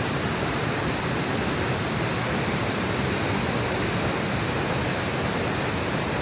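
Cumberland Falls and the Cumberland River below it rushing: a steady, even noise with no breaks.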